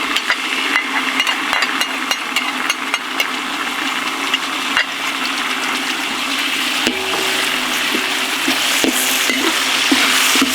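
Sauce of butter, garlic, chili paste and tomato sauce sizzling in a hot pan, with a spatula clicking and scraping against the pan as it is stirred. Background music comes in about two-thirds of the way through.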